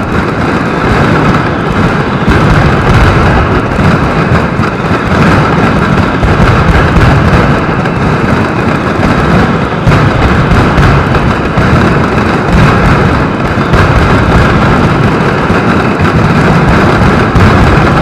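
Mascletà firecrackers exploding in a dense, unbroken barrage, the bangs running together into one continuous loud rumble. Heard through an action camera's waterproof housing.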